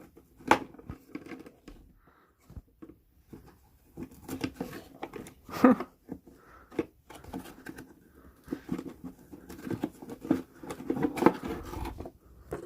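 Hands working at a dirt bike's airbox and air filter, with irregular clicks, scrapes and rustling of parts being handled and pulled out.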